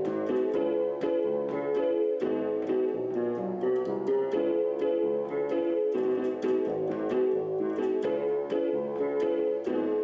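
Electronic keyboard playing in an electric-piano sound: a quick, even stream of notes over held chords.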